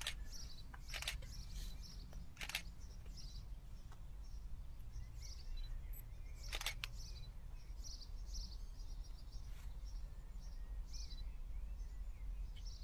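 Small birds chirping in short, high calls over a steady low background hum, with a few brief rustles or knocks from handling.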